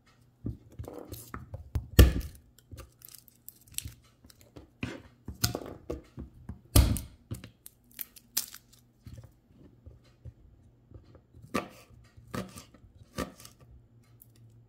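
Garlic cloves being broken off the bulb, peeled by hand and cut with a knife on a plastic cutting board: the papery skins tear and crackle in irregular short bursts, with sharp knocks and cracks, the loudest about two seconds in and again near seven seconds.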